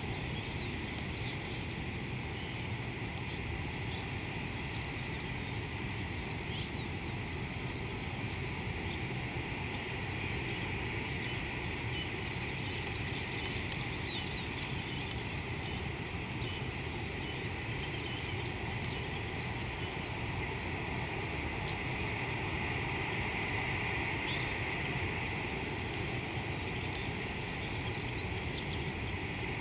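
Steady open-air bush ambience: a constant high insect chorus that swells slightly near the end, scattered faint bird chirps, and a low steady rumble underneath.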